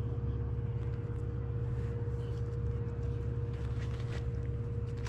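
A steady low mechanical hum with one constant tone over it, unchanging throughout, with a few faint clicks and handling sounds in the second half.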